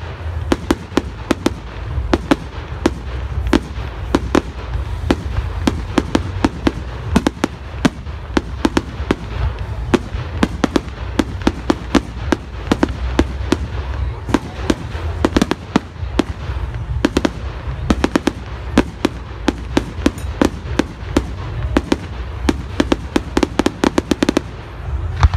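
Fireworks display: aerial shells bursting in a continuous barrage of sharp bangs, several a second, over a steady low rumble. The bangs come thickest near the end.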